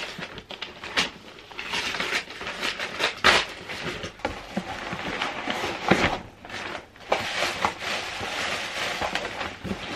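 Wrapping paper tearing and rustling as a large gift box is unwrapped, then cardboard flaps and plastic packing crinkling as the box is opened, with a few sharp rips and knocks.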